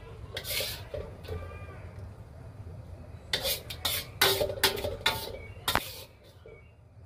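A metal spoon scrapes and clinks against a metal wok as food is scooped out. A few light scrapes come early, then a quick run of louder scrapes and knocks comes about three to six seconds in.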